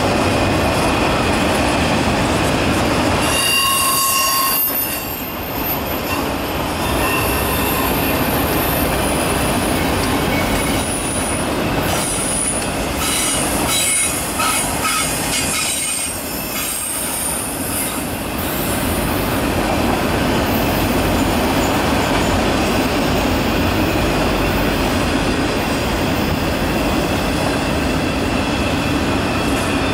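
Freight train of autorack cars rolling past at close range, with the steady rumble of wheels on rail. High-pitched wheel squeal rises about four seconds in and again from about twelve to fifteen seconds.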